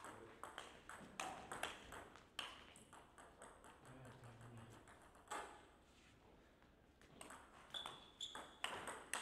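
Table tennis ball clicking off rackets and bouncing on the table in a quick rally for the first two seconds or so, one lone knock about five seconds in, then another run of hits and bounces near the end as play starts again.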